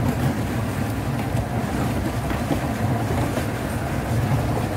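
Small open boat's outboard motor running steadily at low speed, a low even hum over a steady hiss of wind and water.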